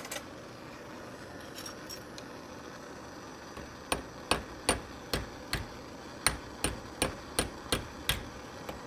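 Hammer tapping a torch-heated steel flat spring clamped in a vise, about a dozen sharp metallic strikes at roughly two and a half a second, starting about four seconds in, bending the hot end over. A steady torch hiss runs underneath.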